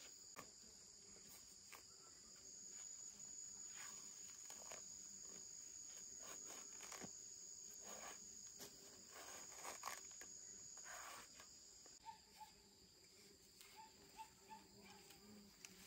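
Faint, steady high-pitched insect trilling in two tones, with scattered soft clicks and rustles.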